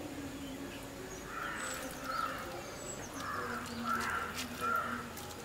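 A crow cawing five times in about three and a half seconds, starting about a second in.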